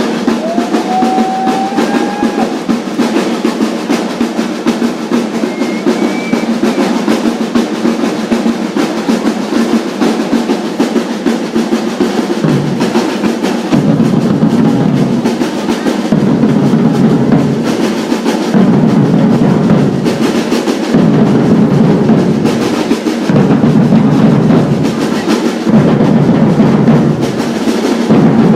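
Percussion group drumming together: a dense, fast snare-drum groove with rolls. About halfway through, deep bass drums come in with a repeating pattern of strokes, and the playing gets louder.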